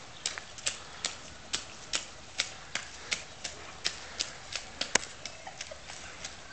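Footsteps on a paved street: a sharp click or slap about twice a second, with one louder step about five seconds in.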